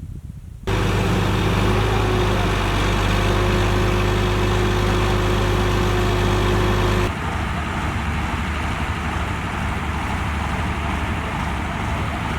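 A vehicle engine running steadily with a low hum. About seven seconds in it changes abruptly to a rougher, noisier engine sound.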